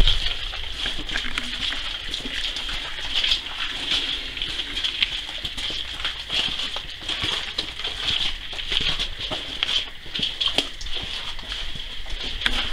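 A continuous high-pitched insect chorus that pulses slightly, over footsteps scuffing on a leaf-strewn stone path. A brief thump right at the start.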